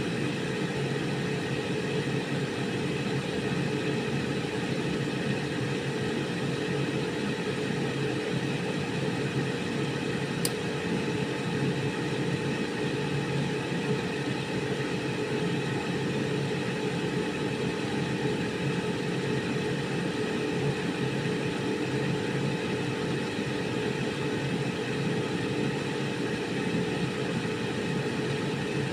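Air fryer running steadily: the whir of its fan with a steady hum. One brief click about ten seconds in.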